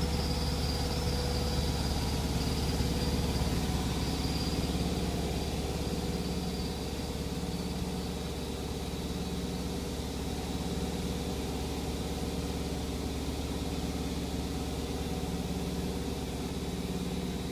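Sears Kenmore washing machine running with a steady low drone, with a heavier throb that swells about every two seconds. The machine is vibrating badly enough to shift out of place despite its vibration guard.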